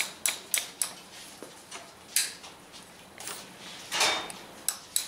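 Light metallic taps of a hammer on a pin punch, driving the float hinge pin out of a Harley-Davidson CV carburetor's cast pin ears. The taps come quickly at first, about four in the first second, then at irregular intervals.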